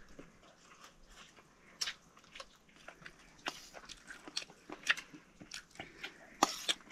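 Something being chewed and bitten: irregular crisp crunches, a few a second, the loudest near the end.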